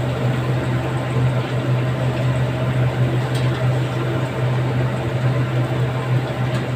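Chicken pieces deep-frying in a wok of hot oil, a steady dense sizzle, over a constant low hum from the kitchen's range.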